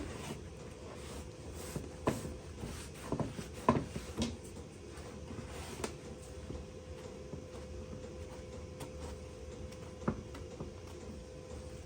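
Scattered light clicks and knocks of metal tools and cross-vise parts being handled on a workbench, a cluster of them a few seconds in and fewer afterwards, over a faint steady hum.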